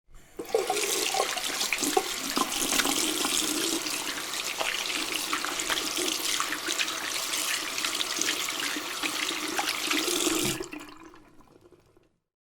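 Hands being washed under a running tap: a steady hiss of water into a sink, broken by small splashes as the hands move through the stream. The water stops about eleven seconds in and the sound dies away.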